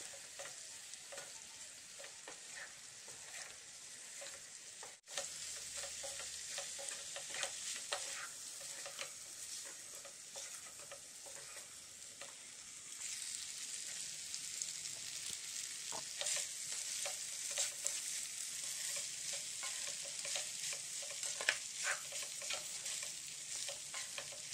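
Pasta and chopped vegetables sizzling in a hot non-stick pan while a spatula stirs and scrapes through them over and over. There is a brief dropout about five seconds in, and the sizzling and stirring get louder from about halfway.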